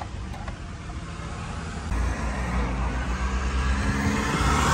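Steady vehicle noise inside a car, a low hum under a noisy hiss, growing louder from about two seconds in, with a couple of faint clicks near the start.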